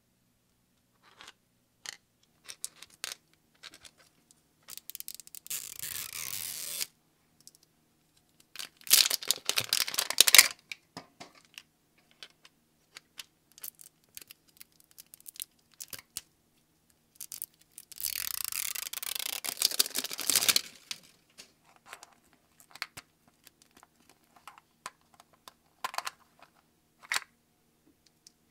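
Plastic wrapping on a Zuru 5 Surprise Mini Brands capsule ball being torn off and peeled in three longer crinkling stretches, the loudest about nine to ten seconds in. Between them come light taps and clicks of fingers on the hard plastic ball as its seal is worked and it is opened.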